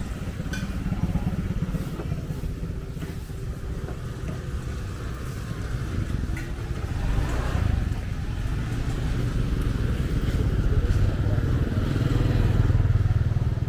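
Motorbike engine running close by, getting louder toward the end as it passes, with a rising rev about halfway through.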